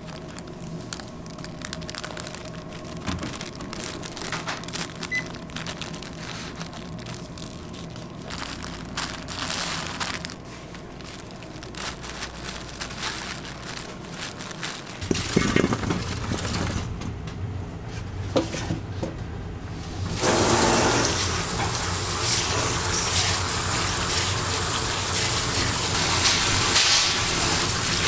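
Parchment paper rustling and rubbing as cream-filled sponge sheets are rolled up with a wooden rolling pin. About twenty seconds in, tap water starts running hard into a steel bowl of strawberries, a loud steady rush.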